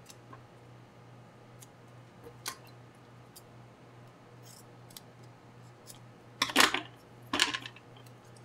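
Small scissors cutting a strip of fiberglass Teflon tape as the tape is handled: a few faint clicks, then two louder, longer cutting sounds about a second apart near the end.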